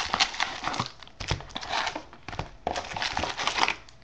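Foil-wrapped trading card packs crinkling and rustling against each other and their cardboard box as they are pulled out and stacked, in three bursts.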